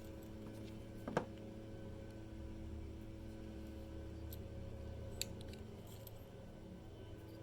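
Small metal parts of a Ford ignition lock cylinder being handled: a sharp click about a second in and a lighter tick about five seconds in, over a steady low hum.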